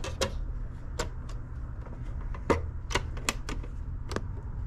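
Plastic clicks from a portable CD boombox as its CD lid is pushed shut and its top is pressed: a string of sharp, irregular clicks.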